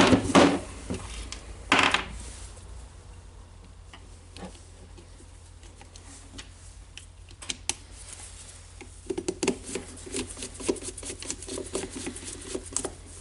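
Light clicks, taps and rattles of a screwdriver and small plastic parts being handled as the router's carbon-brush caps are fitted. There is one louder knock about two seconds in, and the clicking gets quicker and denser near the end.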